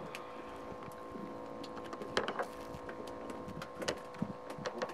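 Fishing boat's engine running with a steady hum, with a few sharp knocks and clicks on deck about two and four seconds in and near the end.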